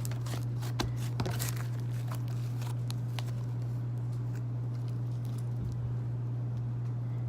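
Slime being squished and stretched by hand, giving short sticky clicks and crackles, frequent for the first three seconds or so and sparser after. A steady low hum runs underneath.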